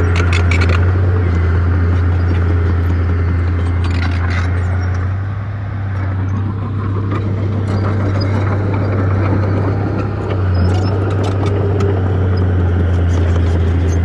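Heavy diesel earthmoving machine engine running steadily with a deep drone. The drone dips briefly about five seconds in and again around ten seconds, with short clicks at the start, around four seconds and near the end.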